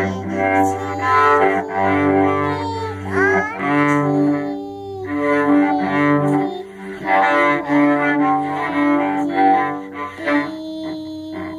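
Cello bowed by a small child, with held notes changing about every second. A child's voice sings along in places with sliding pitches.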